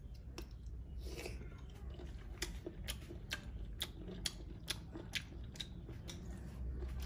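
Someone eating cooked snails: a quick run of sharp wet clicks and smacks, about two a second, in the middle of the stretch.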